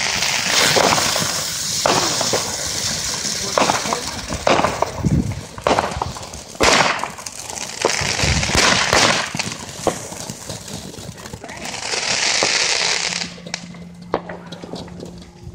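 Homemade firework fountain burning: a hissing spray of sparks broken by irregular sharp cracks and pops, with a louder rush of hiss about twelve seconds in.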